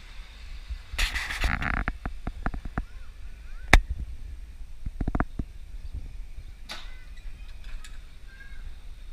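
Vintage electric tram passing close by. A short rush of noise is followed by an uneven run of sharp clicks and clacks from the running gear on the rails, with one louder crack.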